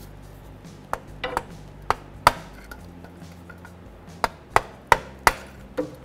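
Hammer tapping a steel pry bar driven into a rusted, thin freeze plug in the engine block to work it out. About ten sharp taps come in two bunches, the loudest a little past two seconds in.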